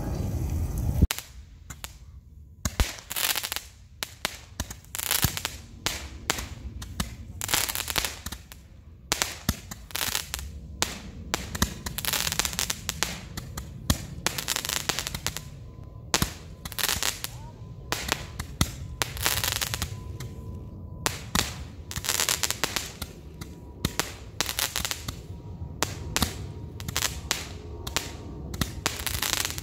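Small consumer fireworks going off: a dense, irregular run of pops and crackles, with short hissing stretches as rockets fly up and burst into sparks.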